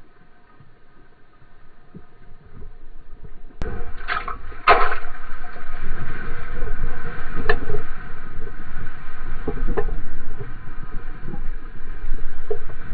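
Seawater lapping and splashing against a surfboard. About three and a half seconds in comes a sudden loud splash, and then a steady, loud rush of water under the board as the wave is caught and ridden.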